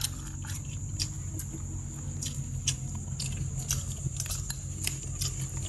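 Light, irregular clicks and taps of chopsticks against a ceramic plate and dipping bowl, several a second, over a steady low hum and a thin steady high whine.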